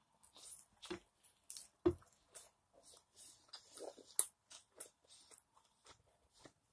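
A person chewing a mouthful of meat with the mouth closed, giving a string of irregular short smacks and clicks of the lips and tongue.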